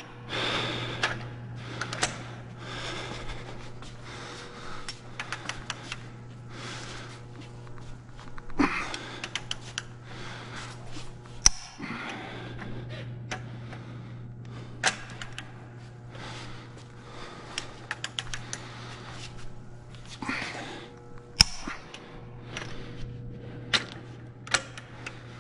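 A long ratcheting torque wrench clicking in quick runs as it is swung back and forth on the main bearing cap bolts of a Detroit Diesel Series 60 engine block. A few sharp clacks stand out, the loudest about 11 and 21 seconds in, over a steady low hum.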